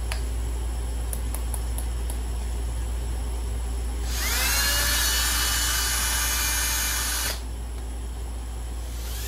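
Cordless hand drill fitted with a number 21 bit spinning up about four seconds in, running at a steady whine for about three seconds while it bores into a plastic container, then stopping suddenly, over a steady low hum.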